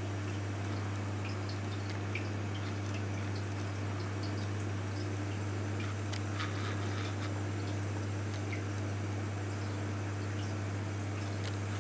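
Marine reef aquarium running: a steady low pump hum with light water dripping and trickling over it.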